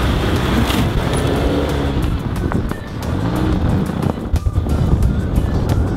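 Jeep Renegade Trailhawk engine pulling the SUV slowly through slushy snow, its note rising and falling once about halfway through, under background music.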